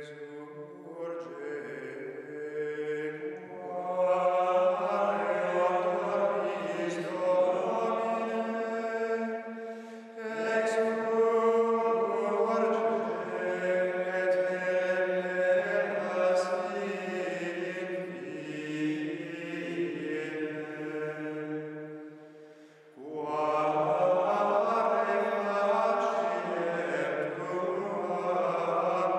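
Male voices chanting plainchant in long, slowly moving phrases, with short breaths about 10 and 23 seconds in: Carthusian monks singing the liturgy in choir.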